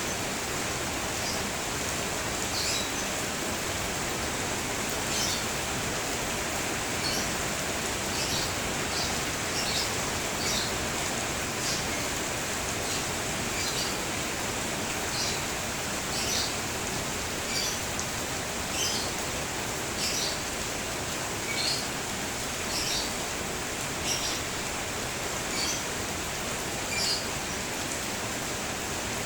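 Steady rain hiss with short, high bird chirps repeating about once a second throughout.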